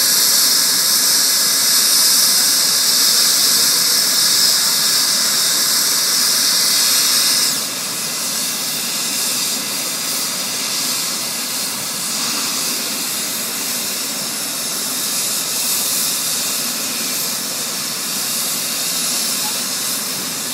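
Eurocopter EC135 air-ambulance helicopter's turbine engines running on the ground with a steady jet-like whine and hiss. About seven and a half seconds in, the high hiss drops off suddenly and the engine sound carries on lower and quieter.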